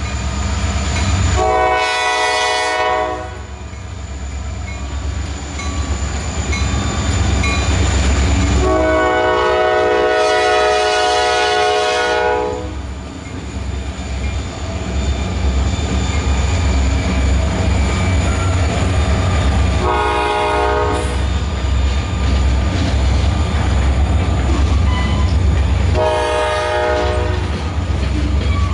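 Freight train of three diesel locomotives and covered hoppers passing close by, its engines running with a deep steady rumble under the wheel noise. The lead locomotive's multi-note air horn sounds four separate blasts, the second the longest.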